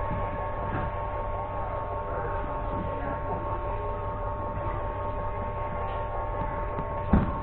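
Steady room hum with a low rumble and a few held tones. A single dull thump comes near the end.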